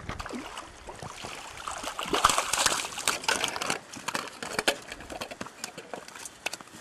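Water splashing and sloshing in irregular bursts, loudest about two to three seconds in: a hooked sea trout thrashing at the surface as it is brought in.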